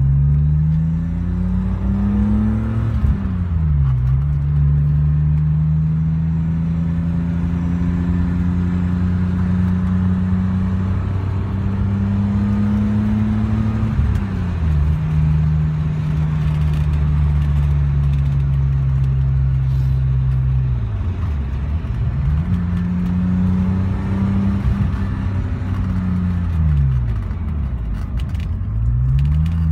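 A 1986 BMW 535i's 3.4-litre straight-six heard from inside the cabin while driving, through a Supersprint cat-back exhaust with the resonator deleted. The revs climb and drop sharply at each gear change, several times over.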